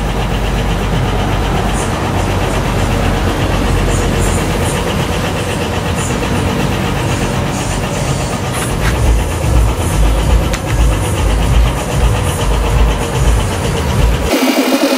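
A machine motor running steadily. About halfway through, uneven low rumbling pulses join it, and it cuts off abruptly near the end.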